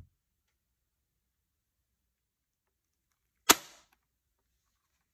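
Bug-A-Salt Black Fly 3.0 air-powered salt gun firing once: a single sharp shot about three and a half seconds in, with a short tail trailing off. A faint knock right at the start.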